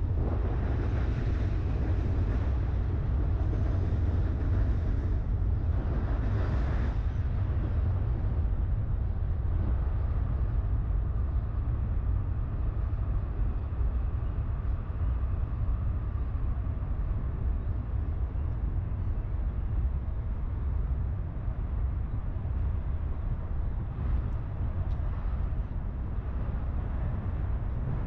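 Outdoor city ambience: a steady low rumble with a broad hiss. The hiss is louder for the first seven seconds or so, then eases off.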